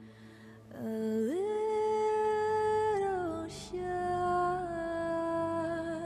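Slow music: a voice hums long wordless notes over a soft sustained accompaniment. It slides up into the first note about a second in, drops to a lower note about halfway, and holds it as it fades near the end, with a short hiss between the two notes.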